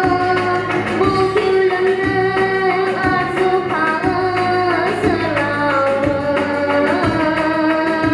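A girl singing into a microphone, holding long, slightly wavering notes over instrumental accompaniment with a steady beat.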